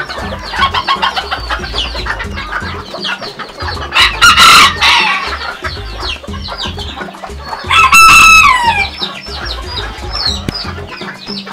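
Bantam roosters crow twice, loudly, about four and eight seconds in. Each crow lasts about a second, and the second trails off in a falling glide. Steady clucking and short calls from the other chickens run underneath.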